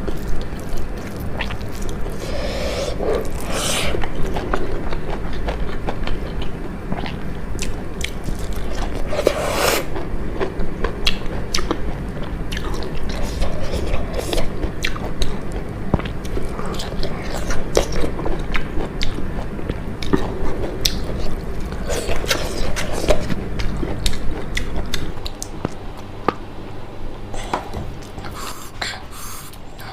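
Close-up chewing and biting of crunchy fried food: a dense run of crisp crackling crunches, a few louder bites standing out.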